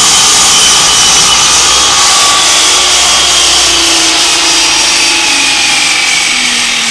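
DeWalt compound miter saw running at full speed as its blade is lowered and cuts through a piece of wood. The motor's whine slowly falls in pitch.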